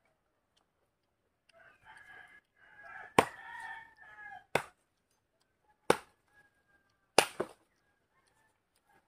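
Four sharp chops of a machete (bolo) into a small tree's stem, about a second and a half apart. A rooster crows in the background before and under the first chop.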